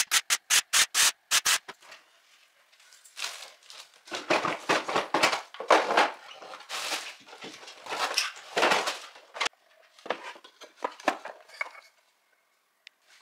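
A steam-generator iron puffing out short bursts of steam, about four a second, for a second or so. After that comes a long stretch of irregular rustling as fabric is handled and moved.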